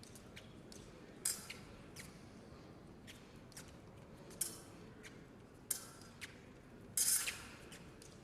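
Sounds of an épée bout on the piste: about five short, sharp scrapes and clicks, the loudest and longest about seven seconds in.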